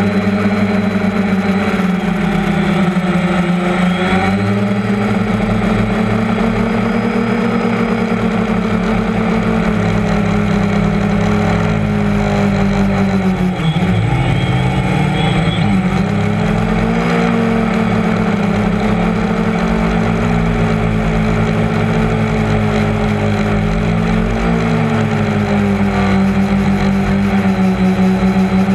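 The electric motors and propellers of a DJI Phantom 1.1.1 quadcopter buzz loudly in flight, heard through the GoPro fixed to the airframe. The pitch of the buzz shifts up and down as the motors change speed, with a brief sharp dip about halfway through.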